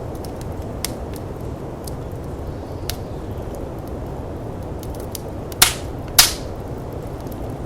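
Wood fire in a firepit crackling over the steady low rush of snowstorm wind, with scattered light crackles and two loud sharp pops a little over half a second apart, about five and a half seconds in.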